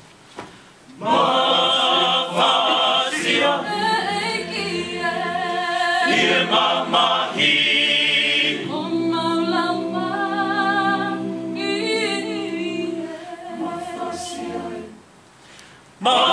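Male voice choir singing a cappella in several parts, with a long held chord in the middle. The singing begins about a second in and breaks off briefly near the end.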